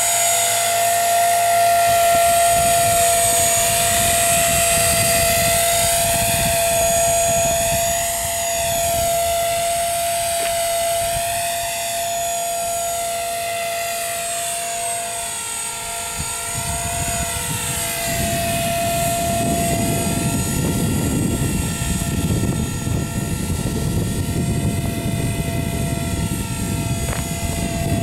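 Blade 300 CFX electric RC helicopter in flight: a steady high whine from its motor and spinning rotor, with overtones that waver up and down as it moves about. About two-thirds of the way in, a low rumble comes in underneath.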